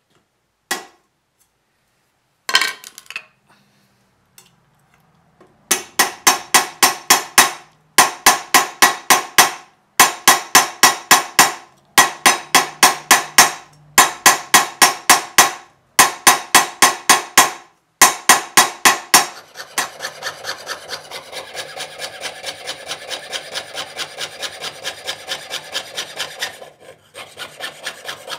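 A hammer striking a copper piece held over a steel stake, in quick runs of about seven ringing blows with short pauses between runs. About twenty seconds in this gives way to a jeweller's saw cutting copper sheet on a wooden bench pin: a steady rasping of quick strokes, with a brief pause near the end.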